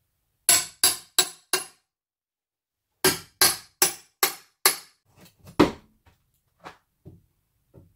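Hammer blows on the top of a door frame: a quick run of four sharp strikes, a pause, five more, then one heavy blow among a few lighter taps.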